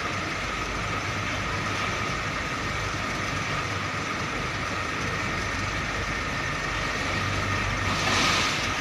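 Heavy diesel trucks' engines running steadily, with a brief louder hiss about eight seconds in.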